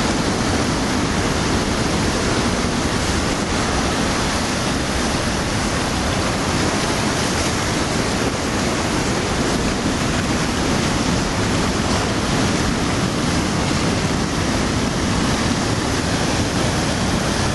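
Ocean surf breaking over rocks, a steady rush of white water.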